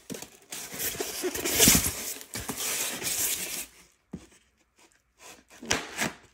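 A polystyrene foam shipping box being handled and slid about, a dense rubbing and scraping of foam for about three seconds. After a short pause, a few sharp clicks near the end as scissors begin cutting along the box's taped seam.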